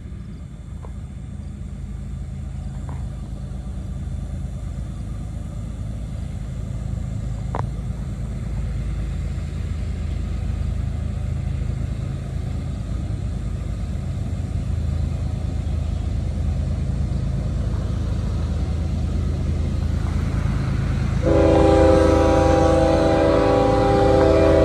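Approaching freight train, a low rumble growing steadily louder, then about 21 seconds in the locomotive's air horn sounds a long chord of several tones that is still going at the end.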